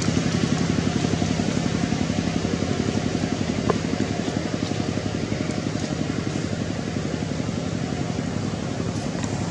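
An engine idling steadily with an even, rhythmic low rumble that eases off slightly, with a brief click near the middle.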